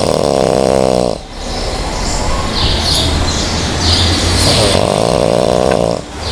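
A person snoring, two loud snores: one lasting about a second, the other beginning about four and a half seconds in. Birds chirp in the background.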